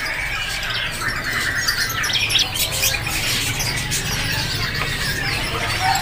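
Caged songbirds chirping and calling, a scatter of short squeaky notes with a brief chattering rattle about a second in, over a low steady hum.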